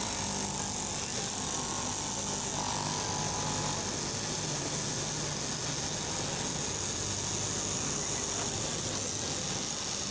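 Electric straight-knife cloth cutting machine running steadily, its upright reciprocating blade cutting through a thick stack of fabric layers.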